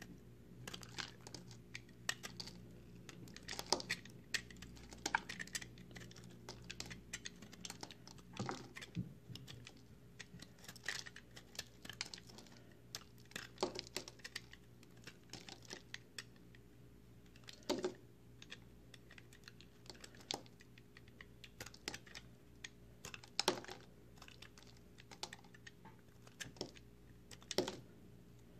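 Utility knife blade cutting and shaving dry, crumbly recycled soap: irregular crisp crunches and crackles as the soap breaks and crumbles under the blade. A faint steady low hum runs underneath.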